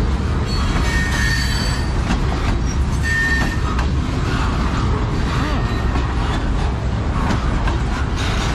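Freight train cars rolling past close by: a steady heavy rumble of wheels on rail, with brief high squeals from the wheels now and then.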